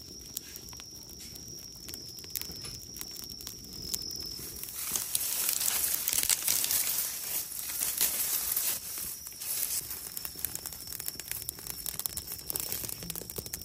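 Dry sesame stalks burning under a cast-iron cauldron, crackling with many small snaps and pops. The fire gets louder with a rushing hiss from about five seconds in, then settles back after about nine seconds.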